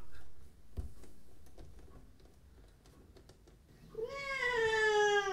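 Pregnant British Shorthair cat in labour, pushing, gives one long drawn-out meow starting about four seconds in; its pitch rises briefly and then slides slowly down. A soft knock comes about a second in.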